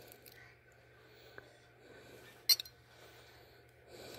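Zippo hand warmer being handled while it is filled with lighter fluid: a few faint clicks and one sharp metallic clink about two and a half seconds in.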